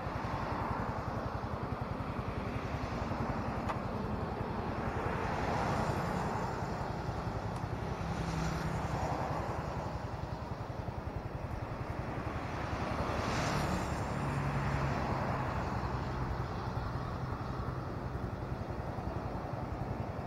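Small Honda motorcycle's engine running at low speed, with road traffic passing close by and swelling louder a few times as vehicles go past.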